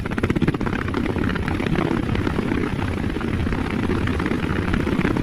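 Helicopter flying, its rotor blades chopping in a fast, steady rhythm over the engine's drone.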